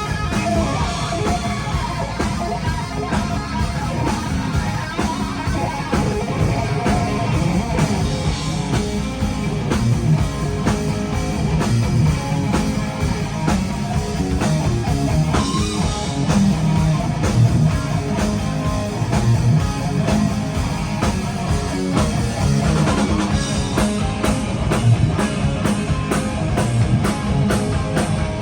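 Rock band playing live, distorted electric guitar over bass and drum kit, with no singing.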